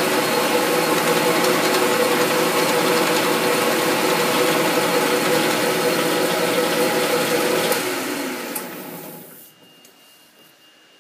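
Metal lathe running, its gear drive whirring steadily with a mix of steady tones; about eight seconds in it is switched off and winds down over a second or two.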